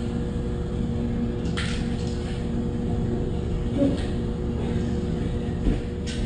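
Steady machine hum with a low rumble and several constant tones, with a brief rustle or scrape about a second and a half in.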